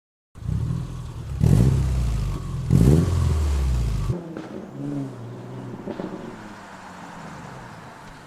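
Car engine running and revved twice, about a second and a half apart. The loud engine sound cuts off abruptly about four seconds in, leaving a quieter steady hum.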